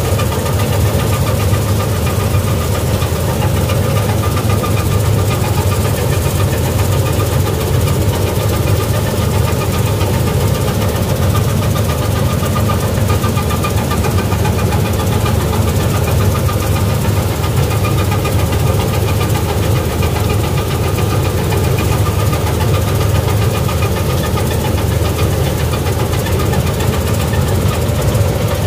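Gill 961 combine harvester running steadily while cutting wheat, heard from the operator's seat: a constant loud engine drone with a thin steady whine from the machinery over it.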